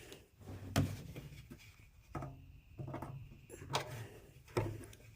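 A few separate light knocks and clicks as parts are handled inside a top-load washing machine, while the drum's tensioner spring is being fitted back into place.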